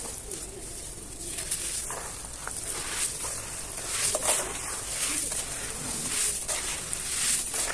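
Dry chunks of black cement and sand being crumbled and crushed by hand: gritty crunching with sand rustling, in repeated strokes a little over one a second.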